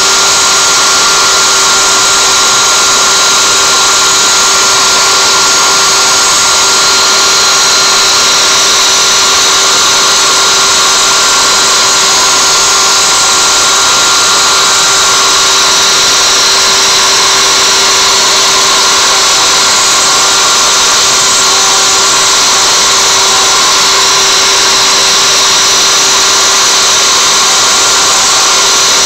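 CNC router spindle running at 24,000 rpm with a 1/8" solid carbide spiral bit, routing knotty alder: a steady whine over a dense hiss.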